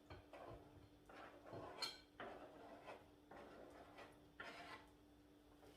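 Knife slicing roasted peppers on a cutting board: a run of faint cuts and taps, roughly two a second, over a faint steady hum.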